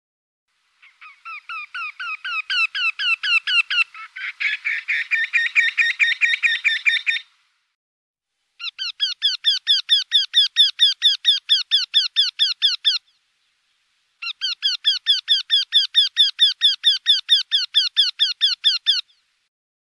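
Eurasian wryneck (Jynx torquilla) calling: three series of evenly repeated notes, about five a second, each lasting four to six seconds with short gaps between. The first series grows louder as it goes and is overlapped by a second series from about four seconds in.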